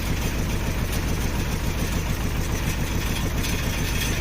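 Diesel engine of a Sany SY35U mini excavator running steadily with an even low throb.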